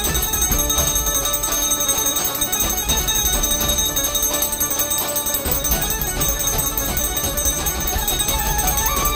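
A hand bell rung steadily and without pause during the aarti, with music playing under it.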